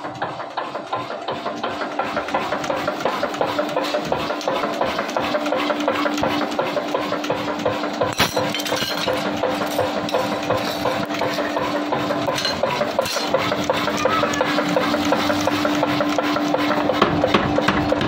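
Mechanical power hammer pounding hot steel in a rapid, steady rhythm of strikes over a steady hum, forging a stone-breaking chisel; it grows a little louder toward the end.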